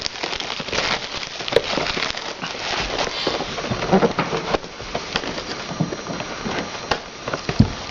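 Crackling and rustling of plastic wrap and cardboard as a sealed trading-card hobby box is unwrapped and opened, with small clicks and scrapes of handling.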